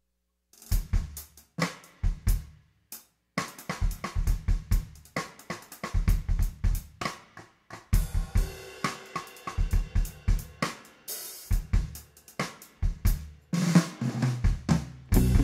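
Drum kit playing the opening of a band's song, with kick drum, snare, hi-hat and cymbal hits in a rhythm that stops briefly a few times. About halfway, held pitched notes join in, and a bass line comes in near the end.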